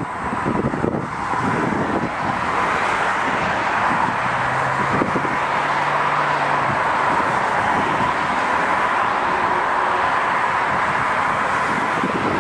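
Distant VIA Rail F40PH-2 diesel locomotive approaching as a steady, slowly growing drone and rush. Wind buffets the microphone in the first second or so.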